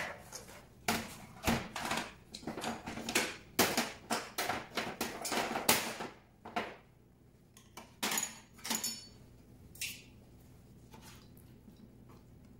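Stainless steel ring molds clattering as they are handled and set down on a steel worktop: a quick run of knocks and clinks, then a few more about eight seconds in, some with a brief metallic ring.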